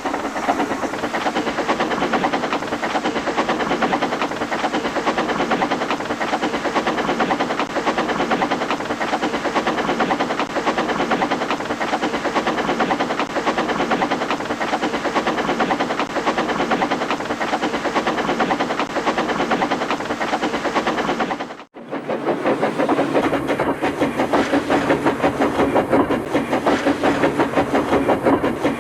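Steam locomotive running sound effect: fast, steady chuffing. It cuts out briefly about 22 seconds in and starts again with a similar chuffing run.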